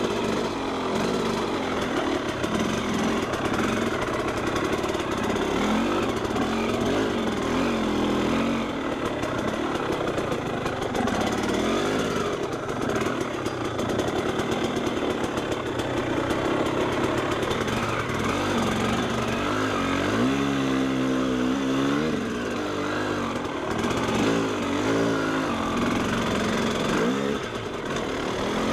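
Trail motorcycle engine revving up and down under load while climbing a rough dirt track, its pitch rising and falling with the throttle, with a sharper rise and fall about twenty seconds in.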